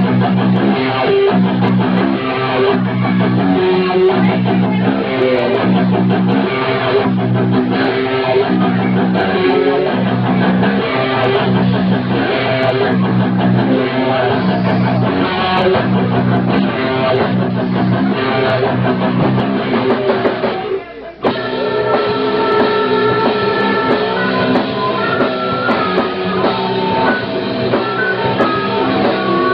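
Live rock band playing an instrumental passage: guitars and drum kit over a steady, repeating bass riff. About two-thirds of the way through the music breaks off for a moment, then comes back with a violin playing long held notes on top.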